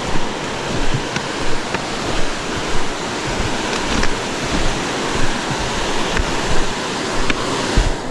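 Footsteps of people hiking down through brush, a low thump about every two-thirds of a second, with a few sharp snaps, over a steady rushing noise.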